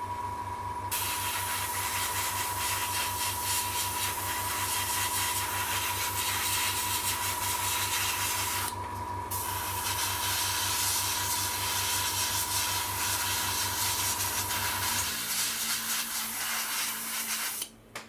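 Paint being sprayed onto a scale model: a steady hiss of spray that stops briefly about nine seconds in, then runs on. A steady machine hum with a thin whine runs underneath and cuts off about fifteen seconds in.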